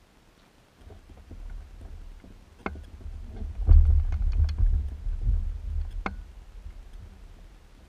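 Uneven low rumble of wind buffeting the microphone, with a few sharp knocks and clicks from the parked microlight trike's frame being handled. The engine is not running.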